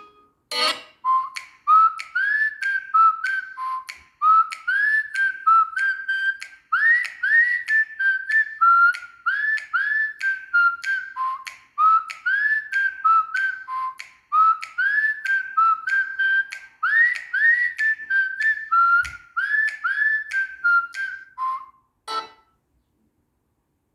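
Honor 9 Lite phone ringtone made of quick whistle-like chirping notes that glide upward, played in repeating phrases. It stops about two seconds before the end.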